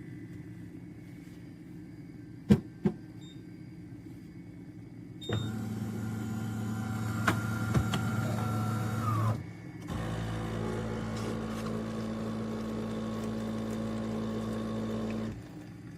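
De'Longhi Rivelia automatic espresso machine at work: two sharp clicks, then its motor runs for about four seconds, stops briefly, and runs steadily again for about five seconds before cutting off.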